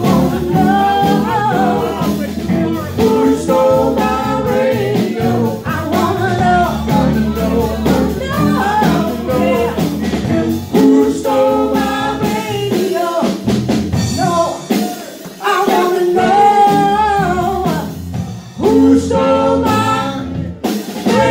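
Live blues band playing, with a woman singing lead over drum kit, bass and electric guitar.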